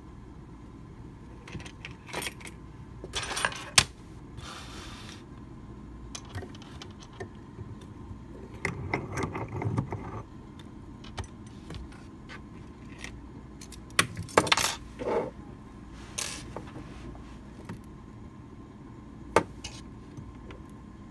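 Metal clicks, clinks and short rattles from handling a picked-open Medeco mortise lock cylinder as it is taken out of a bench vise and set down. They come in several scattered bursts, with a longer scraping rattle about nine seconds in and a single sharp click near the end.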